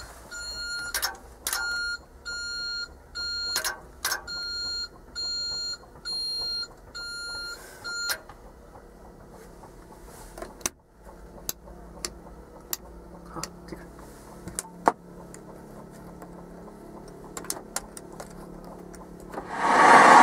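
Electronic warning beeper in the wheel loader's cab sounding a repeated pitched beep, a little more than once a second, for about eight seconds before it stops, with scattered clicks. About a second before the end a loud steady running noise sets in.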